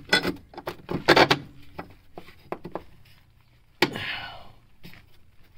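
A metal running-board bracket clanking and scraping against the truck's frame and bolt studs as it is lined up by hand: a string of irregular knocks and clicks, loudest about a second in, with a sharp knock and a short scrape near four seconds.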